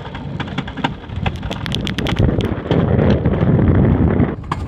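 Wind buffeting the phone's microphone over the rumble and clatter of a Wiegand alpine coaster cart running fast down its steel tube track. The sound grows louder about two seconds in and drops off suddenly near the end.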